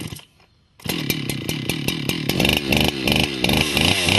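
Two-stroke chainsaw being started on the ground: a brief sputter, then it catches about a second in and keeps running, its speed rising and falling unevenly.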